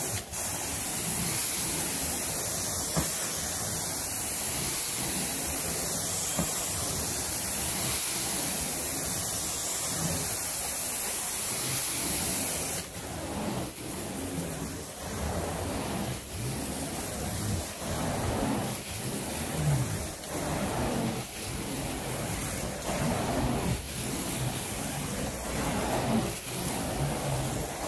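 Carpet extraction wand hissing steadily as it is worked across the carpet, spraying and sucking up cleaning water. About halfway through the high hiss drops away and the sound turns quieter and more uneven.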